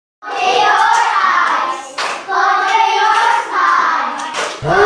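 A group of children singing together in short phrases, with a few sharp hand claps among the singing.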